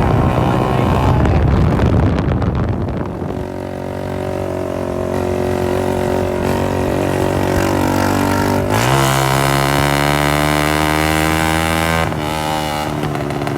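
Honda CG 125's single-cylinder four-stroke engine running loud and raw through a cut-open stock silencer. The engine note is rough for the first few seconds, climbs sharply about nine seconds in and holds higher, then eases slightly near the end.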